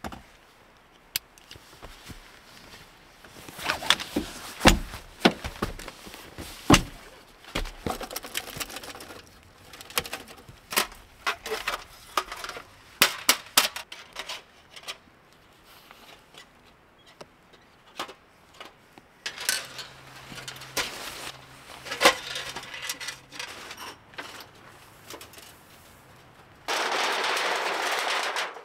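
Camping gear being handled and packed up: scattered sharp knocks and clicks with rustling, and near the end a steady hiss lasting about two seconds.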